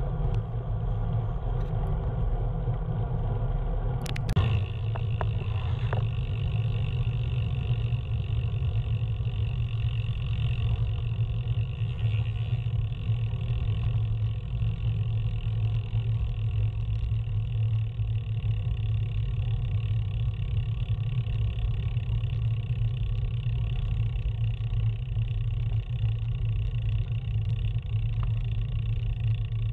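Steady low rumble of a vehicle on the move, with a single sharp click about four seconds in.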